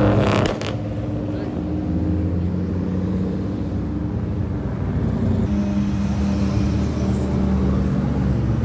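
Several cars cruising slowly past in traffic, engines at low revs with a steady exhaust drone. A short sharp crack comes about half a second in.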